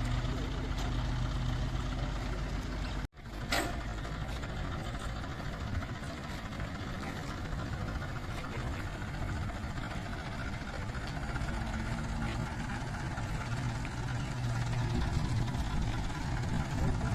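Diesel engine of a JCB 3DX backhoe loader running steadily. The sound drops out briefly about three seconds in, and a sharp knock follows.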